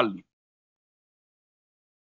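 Dead silence after the last syllable of a man's speech: the line is fully gated, with no room tone.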